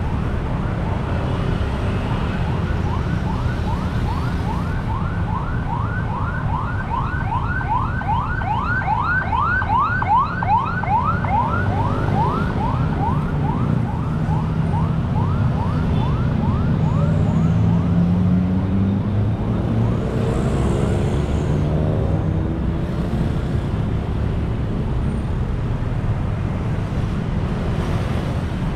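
Steady road traffic of cars and motorbikes passing, with a siren giving a fast repeating rising yelp, about four sweeps a second. The siren comes in a couple of seconds in, grows loudest in the middle and fades out about fourteen seconds in.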